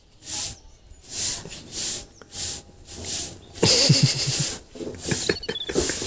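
Young kitten hissing in a string of short breaths while a hand play-wrestles it. About halfway through comes a louder scuffle, with the kitten scrabbling and scraping on the woven plastic sack it lies on.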